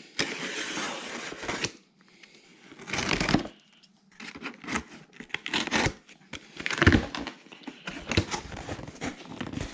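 A package being opened by hand: rustling, tearing and crinkling of packaging, with scattered clicks and knocks.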